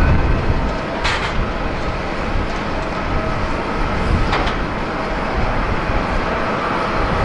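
Airbus A350-900's Rolls-Royce Trent XWB turbofans at climb thrust just after take-off: a steady low jet rumble with a broad hiss. Two brief hissing swells come about a second in and about four seconds in.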